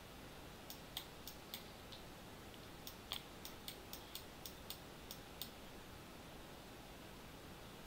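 Computer mouse clicking: about a dozen sharp, short clicks in two runs, a few tenths of a second apart, over faint hiss.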